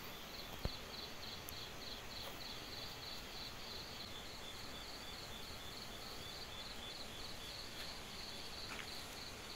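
Night insects chirping in a steady, pulsing high trill, cricket-like, over a constant hiss of background noise; a single sharp click about half a second in.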